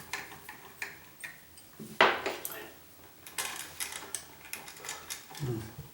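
A dimmer switch and its wiring being handled and pushed into a wall electrical box: a run of small, hard clicks and knocks, the sharpest about two seconds in.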